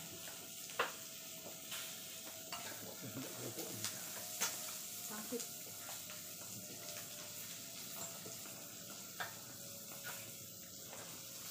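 Food sizzling on a tabletop grill plate, a steady hiss, with a few sharp clicks of forks and utensils against the grill and plates.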